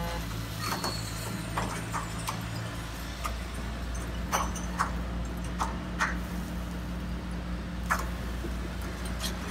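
Hydraulic RC model excavator running with a steady low pump hum, while small stones give about a dozen irregular clacks as they knock in the bucket and drop into a model dump truck's bed.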